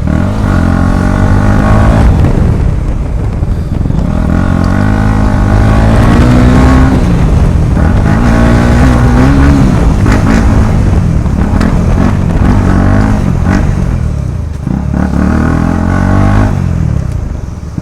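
KTM Duke motorcycle engine running with its exhaust silencer removed, very loud, its note climbing and falling repeatedly as the bike accelerates through the gears.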